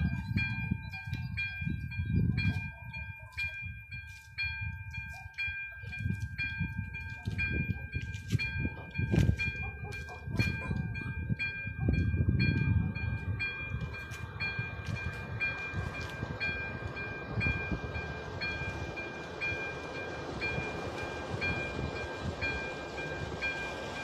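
Electronic warning bell of an AŽD 97 level-crossing signal ringing, about two strokes a second, while the crossing is closed for an approaching train. In the second half, a steady rushing rail noise from a train rises beneath it.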